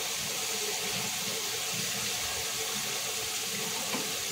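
Breaded chicken pieces deep-frying in hot oil: a steady, even sizzling and bubbling. This is the frying sound the cook reads as the sign that the chicken is crisp and ready.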